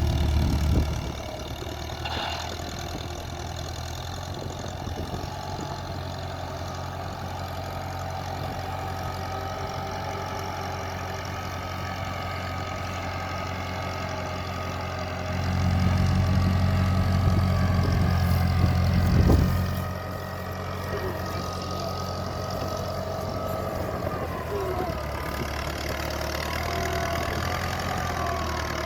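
Engine of a working machine running steadily. It grows louder for about four seconds past the middle, then settles back to its earlier level.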